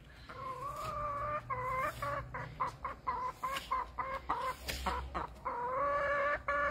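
A hen calling on and off: a series of drawn-out, held calls, several about a second long, with short sharp sounds between them.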